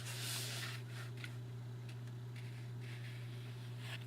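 Soft rustling and faint ticks of trading cards being slid and handled, strongest in the first second, over a steady low electrical hum.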